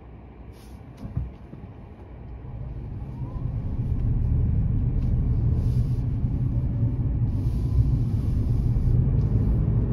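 Low road and engine rumble heard inside a car's cabin, growing over a couple of seconds as the car pulls away and picks up speed, then running steadily. There is a brief knock about a second in.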